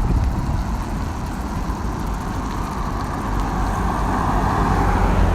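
Wind buffeting the microphone and road noise while riding a bicycle through the city, a steady heavy rumble.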